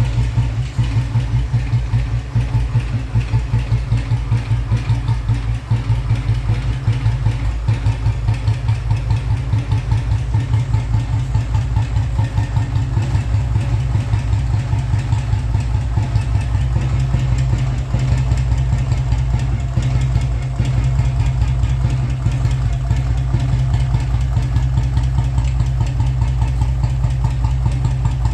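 Royal Enfield Bullet 500's cast-iron single-cylinder engine, with points ignition and a heavy 12.5 kg crank, idling steadily with an even, deep thump.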